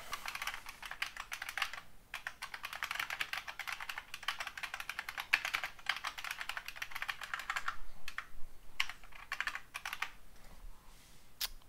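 Typing on a computer keyboard: a fast, steady run of keystrokes with a short break about two seconds in, thinning to a few scattered keystrokes in the last few seconds.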